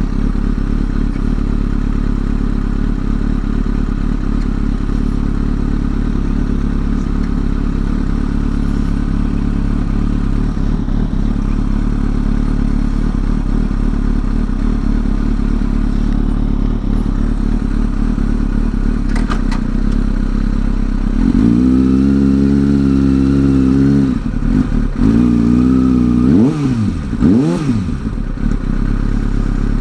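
Sport motorcycle engine idling steadily; about two-thirds of the way in its note rises and holds higher and louder for a few seconds, then a couple of quick throttle blips rise and fall near the end.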